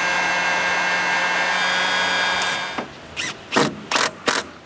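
Electric heat gun running steadily with a fan whine while shrinking heat-shrink tubing over a soldered sensor wire joint, cut off abruptly. It is followed by four or five short, sharp noisy bursts about a third of a second apart.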